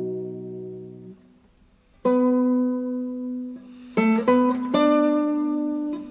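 Background music on plucked acoustic guitar. A chord rings and fades out about a second in, and after a short pause a single note sounds and rings on. Then a quick run of plucked notes comes near the end.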